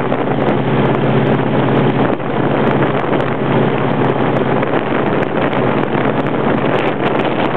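Boat engine running steadily, a constant low hum, with wind rushing and buffeting on the microphone.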